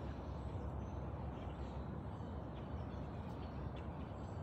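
Steady low outdoor background rumble, with a few faint ticks.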